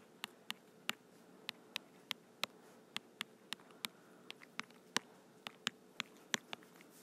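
Stylus tapping on a tablet screen while handwriting numbers: sharp, irregular clicks, about two or three a second, over a faint steady hum.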